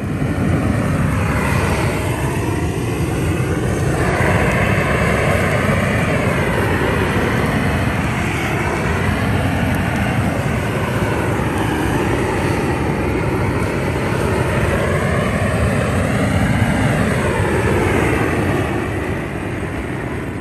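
Hose-fed gas torch burner running at full flame with a loud, steady rushing hiss, its tone wavering up and down as the flame is swept over a small game carcass to singe off the fur. It starts suddenly and fades out at the very end.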